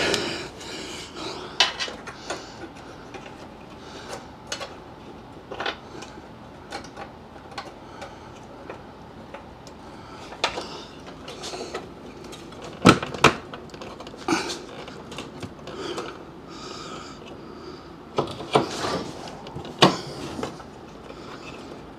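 A screwdriver's steel shank clinking and scraping against the sheet-metal bracket as it is worked in a bolt hole to line up the holes. It makes irregular light clicks and knocks, with a few louder knocks about halfway through and near the end.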